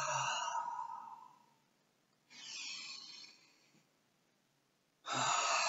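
A man breathing slowly and audibly in a belly-breathing drill. A long breath out trails off in the first second and a half, a quieter breath in follows about two seconds in, and a strong, sigh-like breath out starts near the end.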